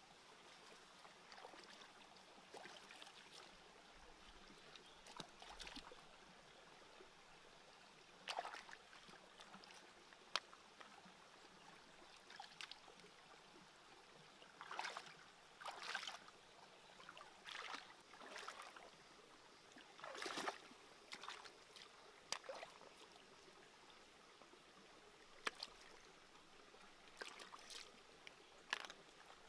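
Faint trickling water with scattered brief swishes and a few sharp clicks, the sounds of something being handled in or near water.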